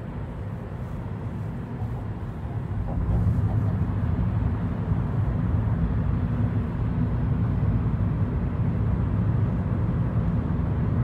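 Steady low road and engine rumble inside a moving car's cabin, growing a little louder about three seconds in.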